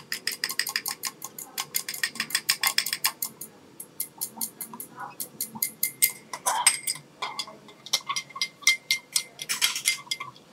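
Glass stirring rod clinking against the inside of a glass beaker while pigment is stirred into liquid: rapid clicking about six times a second, thinning after about three seconds to scattered taps with a couple of brief flurries.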